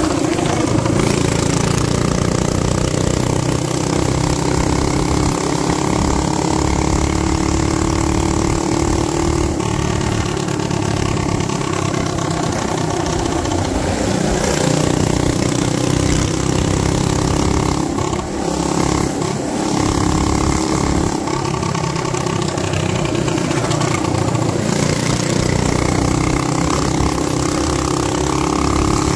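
Hopped-up Predator 212cc single-cylinder four-stroke minibike engine (hemi head, flat-top piston, CL3 cam, Mikuni VM22 carb) running hard at high revs under load, its note climbing slowly and dropping back briefly a few times before climbing again. Wind rushes over the microphone throughout.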